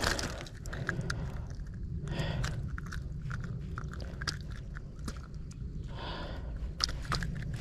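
Scattered small clicks and rustles as a just-caught bass hanging on the line is grabbed and handled over the rocks, with a steady low rumble underneath.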